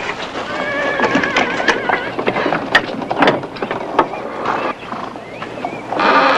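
A horse whinnying, with scattered knocks of hooves and footfalls on dirt, and a louder rush of noise near the end.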